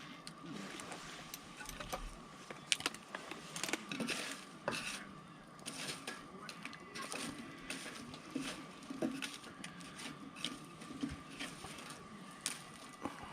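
Wood campfire crackling and popping: irregular sharp snaps of varied loudness, with a thin steady tone underneath.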